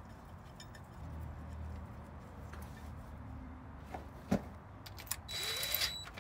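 Low steady hum with quiet hand-work sounds on the truck's driveline: a single knock about four seconds in, then a short scrape near the end.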